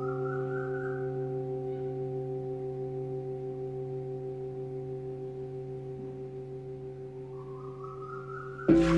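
Antique Tibetan singing bowls ringing: several steady overlapping tones fade slowly with a gentle wavering pulse. Just before the end another bowl is struck with a felt mallet, a sudden loud new ring.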